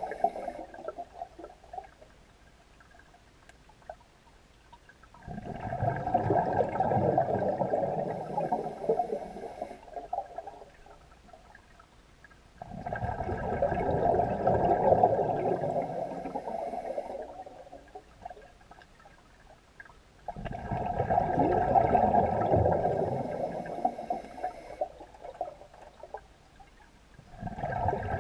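A scuba diver's breathing heard underwater: each exhalation through the regulator releases a long gurgle of bubbles lasting several seconds, repeating about every seven to eight seconds. There are three full exhalations, with short quiet gaps for the inhalations between them.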